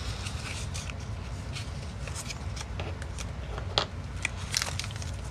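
Clear plastic clamshell case being pried open and handled: scattered small plastic clicks and rustles, with a sharper click near the end, over a low steady hum.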